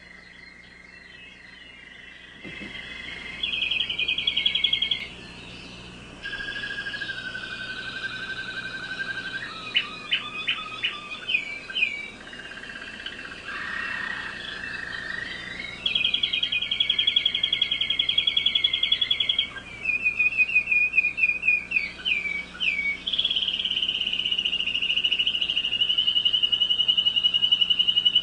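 American Singer canary singing a long, varied song of rapid trills and rolls, changing phrase every few seconds between lower and higher pitches. Short runs of separate chopped notes come in twice, and it ends on its loudest, longest high trill.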